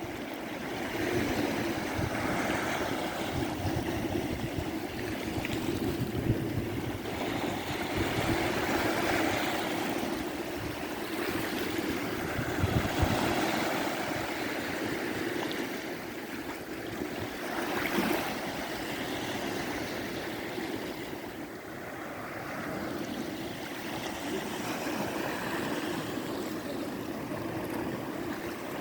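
Sea waves breaking and washing up on a beach, the surf rising and falling in swells every few seconds, with a steady low rumble underneath.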